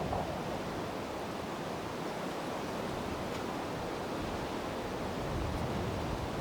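Strong wind blowing steadily in the open, a dense rushing noise with low rumbling gusts buffeting the microphone.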